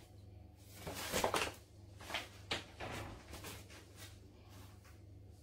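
Kitchen handling noises as a flour bag is folded shut and items are moved on the worktop: a series of short rustles and knocks between about one and three and a half seconds in, the first the loudest.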